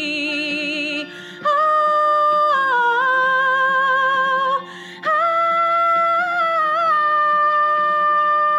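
A woman singing long held notes with no clear words, stepping between pitches, with two short breath breaks, over a steady accompaniment from the stringed instrument on her lap.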